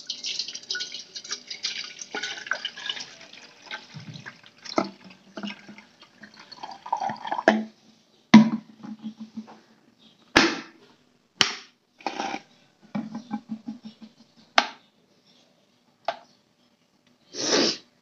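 Water poured into a stainless steel kettle for the first few seconds, followed by a series of short knocks and clicks as the kettle is handled.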